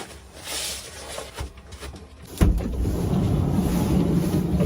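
Wind buffeting the microphone in a storm, starting suddenly about halfway through as a loud low rumble, with light rustling before it.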